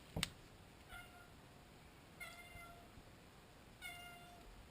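A cat meowing faintly three times, short level-pitched meows spaced a second or more apart. A short sharp click comes right at the start.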